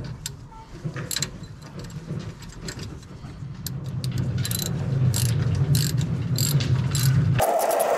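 Ratchet wrench clicking in quick, irregular runs as it turns the lower mounting bolt of a rear shock absorber. A steady low hum runs underneath, grows louder about halfway through and cuts off suddenly near the end.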